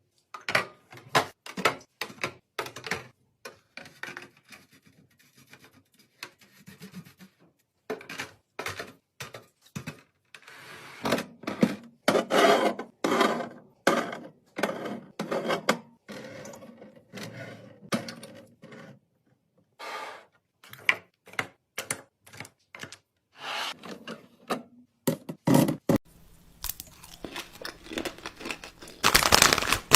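Groceries and plastic containers being handled, unpacked and set into a refrigerator: a string of irregular clacks, knocks and scraping, with louder rustling stretches in the middle and near the end.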